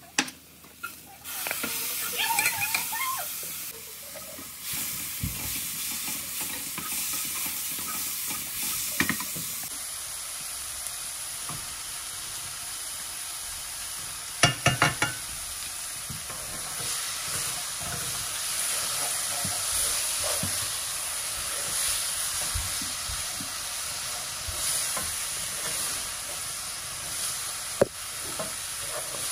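Food sizzling as it fries in a pan, with stirring. A few sharp clatters come about halfway through, and one more near the end.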